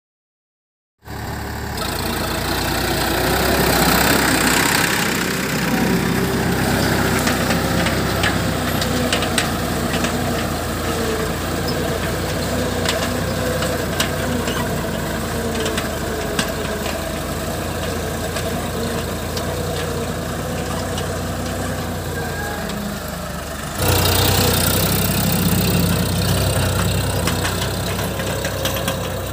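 Sonalika DI 47 RX tractor's diesel engine running steadily under load while it pulls a tined cultivator through soil. It starts about a second in, with scattered light ticks over the engine. Near the end the sound jumps abruptly louder and closer.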